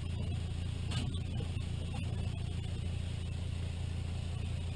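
Steady low motor hum of shop machinery running next to a sandblast cabinet being loaded.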